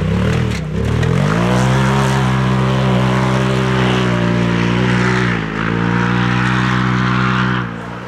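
Off-road rally vehicle's engine at high revs as it accelerates away: the note climbs over the first second or so, dips briefly twice (shortly after it starts and again about five and a half seconds in) as the revs drop and pick up again, then holds a steady high pitch before cutting off abruptly near the end.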